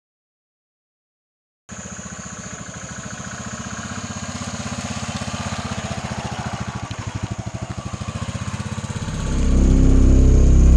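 Motorcycle engine running with an even, rapid beat, starting after a second or two of silence. It grows much louder near the end as the bike rides off.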